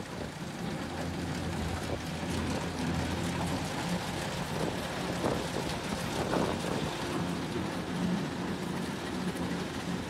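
Kubota DC-105X combine harvester's diesel engine running steadily under load as the machine cuts and threshes rice, a continuous low hum.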